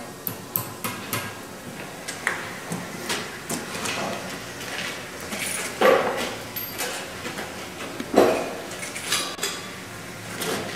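Irregular light taps and clicks of headed nails being worked into the top of a gypsum mould by hand, with two louder knocks about six and eight seconds in.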